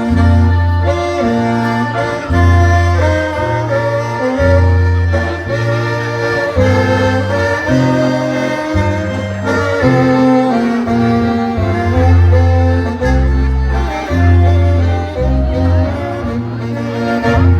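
A band playing a waltz: a melody line over heavy bass notes recurring about once a second.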